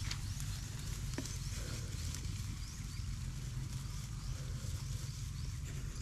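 Goat herd grazing and moving through vegetation: faint rustling and a few soft steps over a steady low rumble.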